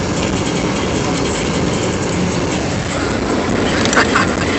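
Steady road and tyre rumble inside a moving car's cabin, driving on a snow-covered road, with two short clicks near the end.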